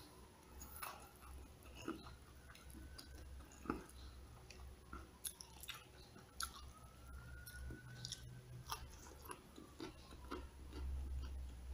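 A person chewing a mouthful of crispy fried chicken and rice, with many short wet mouth clicks and smacks at irregular intervals, over a faint steady low hum.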